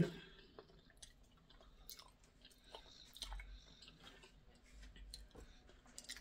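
Faint chewing and mouth noises of a person eating a meal by hand, with small wet clicks scattered through.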